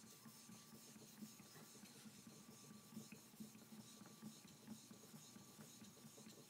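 Faint, rhythmic scraping of a laminated kanna blade in a honing guide being stroked back and forth on a wet suita natural whetstone with clear water and no slurry, about two strokes a second.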